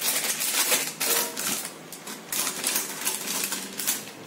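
Plastic packaging around a hard disk crinkling and crackling as it is handled and opened: a quick, irregular string of crackles.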